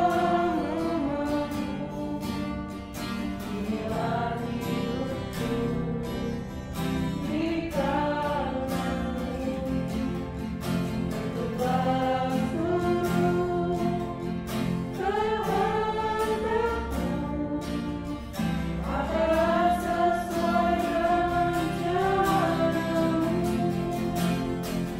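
Small group singing an Indonesian worship song, phrase after phrase, accompanied by strummed acoustic guitar.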